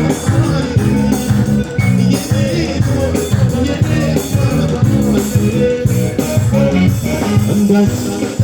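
A live band playing an instrumental passage of an Ethiopian pop song, with a steady rhythmic bass line under the melody.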